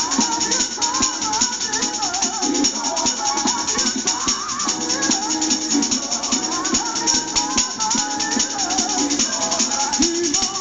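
Handheld tambourine shaken and struck in a rapid, steady rhythm, its metal jingles rattling, played along to a recorded gospel song with singing.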